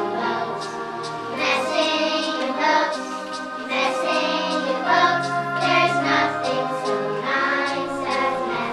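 A chorus of children singing together, with instrumental accompaniment holding steady low notes beneath the voices.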